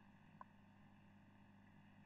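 Near silence: room tone with a faint steady low hum and one tiny click about half a second in.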